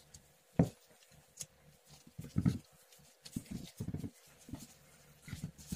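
A spoon scooping raw minced meat and pressing it into a hollowed-out small pumpkin: short, irregular soft knocks.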